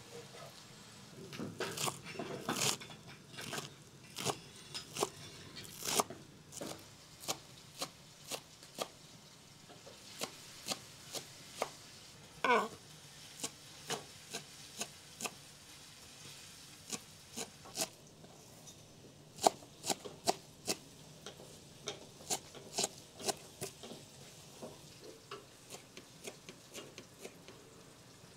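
Kitchen knife chopping fresh herbs on a wooden cutting board: irregular sharp taps of the blade against the board, about one to two a second, quicker in the first few seconds. A brief squeak that bends up and down in pitch sounds about halfway through.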